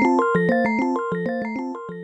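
Kyocera SE44 slider phone playing a ringtone: a fast synthesized melody of short, piano-like notes, about eight a second, growing gradually quieter.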